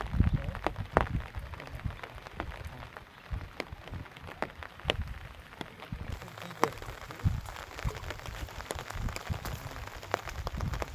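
Irregular splashing and dripping of water, many small sharp spatters over a low rumble, as a fishing net and hands work in shallow water.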